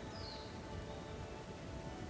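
Cedar and cypress bark fire burning in a burn cage, a low steady rustle under everything, while a bird gives one short high call that falls in pitch near the start.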